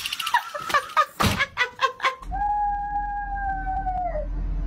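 For about two seconds there are sharp knocks and rattles at a glass storm door. Then a small dog howls one long, level note that sags in pitch as it ends.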